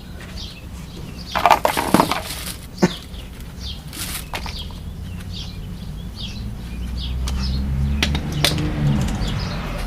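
Metal clanks and rattles of tools and brake parts being handled during a brake job, a short clatter about a second and a half in, then single knocks later. Birds chirp repeatedly throughout, and a low rumble swells in the second half.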